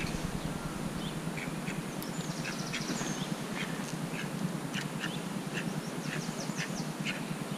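A white duck quacking repeatedly in short calls, about two a second, over a steady low background hum.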